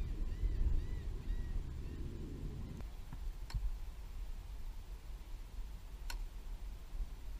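Low wind rumble on the microphone, with faint high chirps in the first two seconds and two sharp clicks, one about three and a half seconds in and one about six seconds in.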